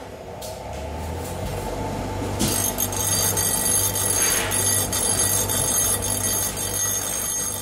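Bench grinder humming, then about two and a half seconds in the cut end of a 10mm steel rod is pressed to the grinding wheel. This gives a steady high-pitched grinding screech over the motor hum as the cutting burr is ground off.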